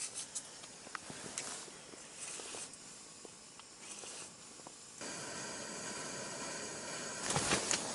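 Quiet handling of ice-fishing rods and gear: scattered small clicks and rustling of clothing and gear. A steady hiss comes in suddenly about five seconds in, and a louder burst of rustling and clicks comes near the end.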